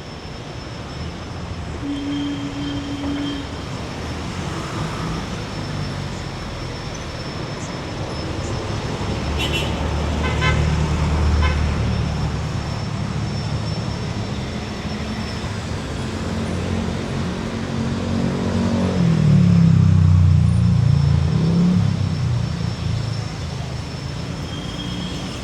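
City street traffic with engines passing close by, two of them loudest around ten and twenty seconds in. A short horn toot sounds about two seconds in.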